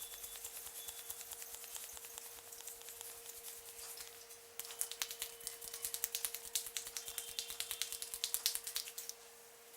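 Barber's hands tapping and patting rapidly on a head in an Indian head massage, a fast patter of light slaps. It gets louder and sharper about halfway through and fades out near the end.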